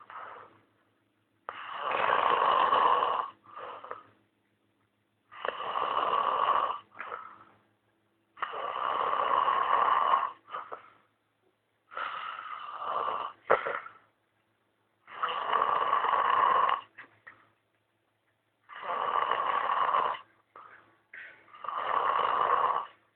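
Snoring in a steady breathing rhythm: a loud snore of about a second and a half roughly every three and a half seconds, each followed by a short, weaker breath sound.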